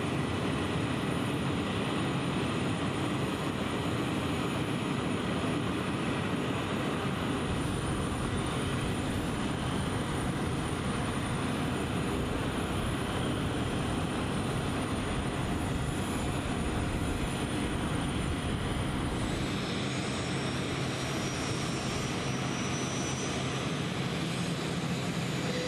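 Airbus A400M Atlas's Europrop TP400 turboprop engines running on the ground, their eight-bladed propellers turning: a steady, even engine noise that changes slightly in tone about three-quarters of the way through.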